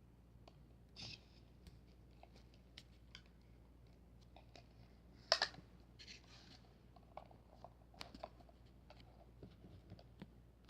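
Quiet handling sounds of small objects: scattered light clicks and taps with a couple of brief rustles, and one sharper click about five seconds in.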